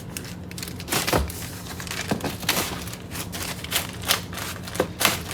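Packaging being handled and opened: a string of irregular clicks, knocks and crinkles.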